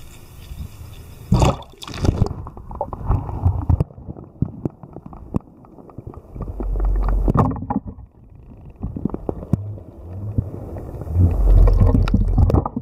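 A camera dips into a small river with a splash about a second and a half in. It then sits underwater, giving muffled, irregular knocks and low swells of rumbling from water moving against it and from it being handled.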